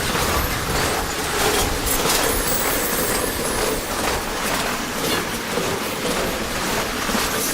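Freight train cars rolling past close by, their wheels clattering steadily over the rail joints, with a faint high wheel squeal now and then.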